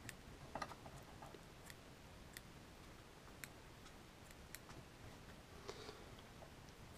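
Small scissors snipping egg yarn while a Glo Bug fly is trimmed to a round shape: faint, irregular snips and clicks, about ten over several seconds.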